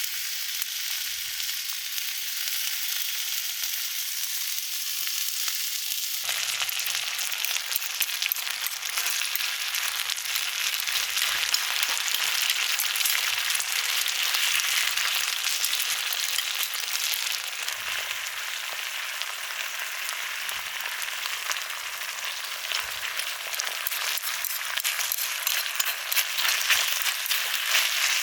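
Food sizzling and spitting in a hot pan, which turns suddenly fuller and louder about six seconds in.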